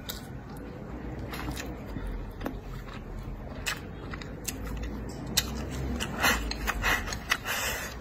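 Close-up eating sounds: a person chewing food with wet mouth smacks and clicks, with louder bursts of chewing in the last couple of seconds.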